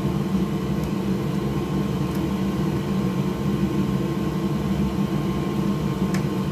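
Steady machine hum from a fan or similar equipment, with a few faint light clicks.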